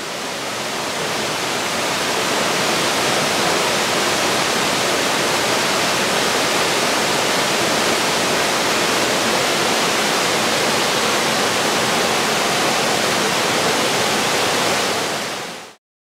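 Waterfall: a steady, dense rush of falling water. It fades in over the first couple of seconds and fades out shortly before the end.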